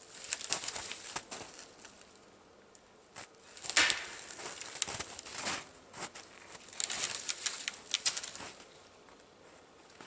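Footsteps in snow and spruce boughs rustling as a person moves through them, in several irregular bursts of crunching and brushing with short pauses between; the loudest burst comes about four seconds in.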